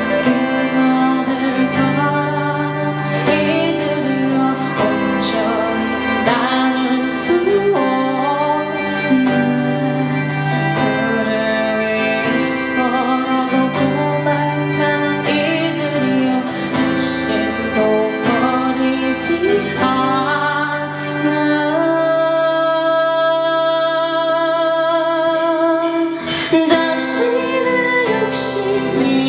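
A band playing a song live: a full, steady mix of sustained chords and melody lines, with sharp hits recurring every few seconds.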